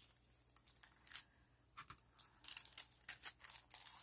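Faint, scattered crinkles and clicks of cellophane-wrapped sticker packs being picked up and shuffled by hand.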